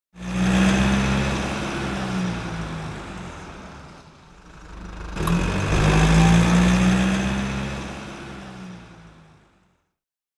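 Car engine sound effect: an engine running with a steady low tone, swelling in twice, the second time just after a sharp click about five seconds in. Each swell fades, and the sound dies away near the end.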